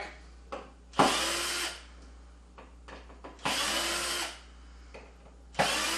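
Power screwdriver running in three short bursts, each under a second, backing out the small oval-head screws that hold a shipping brace on a wooden track. Each run is a steady motor whine.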